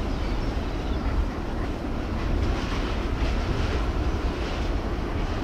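Steady low rumble of the ferry Isle of Innisfree's engines as the ship manoeuvres close in, with a steady hiss of wind and water over it.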